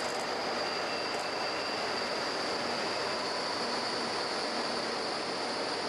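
ALFA-X (E956) test shinkansen running slowly into the platform: a steady rush of running noise with a high whine held steady over it.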